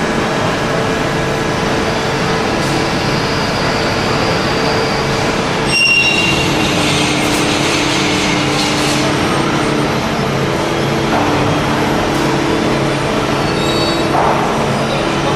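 Production-line conveyors in a cathode-ray-tube factory running, a steady mechanical whir and rumble with a constant hum. The sound changes about six seconds in.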